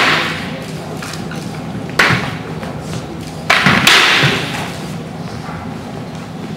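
Sharp clacking impacts of simulated longswords in sparring: one at the start, one about two seconds in, and two in quick succession a second and a half later, each ringing on in a large hall.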